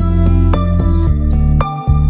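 Background music: a gentle new-age instrumental with a steady beat, held notes and a deep bass line.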